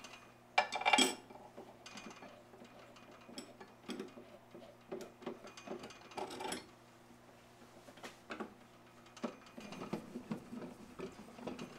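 Light metal clinks and handling clatter as a steel threaded rod is fitted and adjusted in a drill press chuck, loudest about a second in, over a faint steady hum; the drill press motor is not running.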